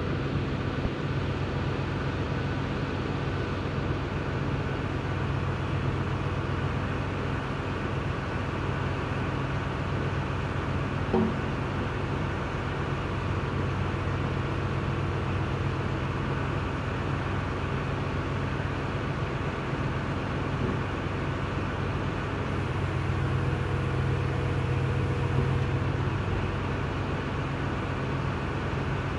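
Steady low mechanical drone of a running machine, even throughout, with one light knock about eleven seconds in.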